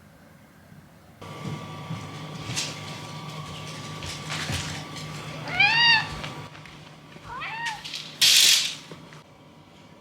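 A cat meowing twice: a longer meow rising and falling in pitch about six seconds in, then a shorter one a moment later, over a steady low hum. A short, loud rush of noise follows near the end.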